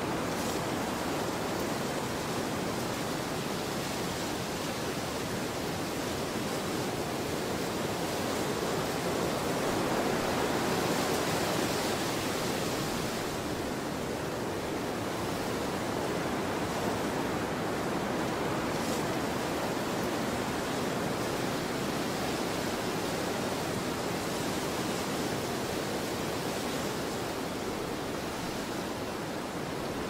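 Steady rushing wind ambience, a continuous even roar that swells a little about ten to twelve seconds in.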